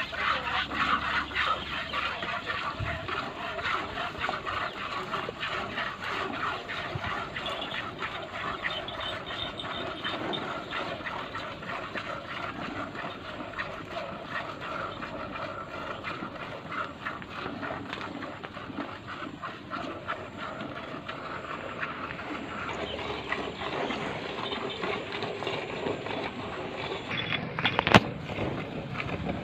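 Cow being milked by hand: milk streams squirting into a steel pail over and over, with a sharp knock near the end.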